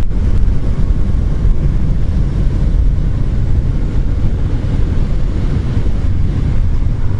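Wind buffeting a helmet-mounted camera microphone on a motorcycle at road speed: a steady, dense low roar.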